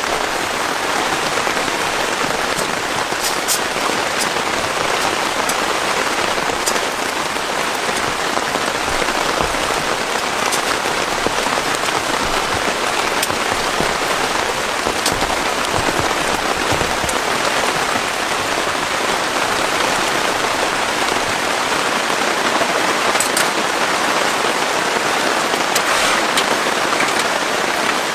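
Heavy rain falling steadily, with a few sharp drop ticks standing out here and there.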